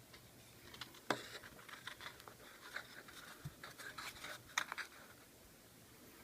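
Light handling noises: a run of small taps, clicks and scrapes, sharpest about a second in and again near four and a half seconds.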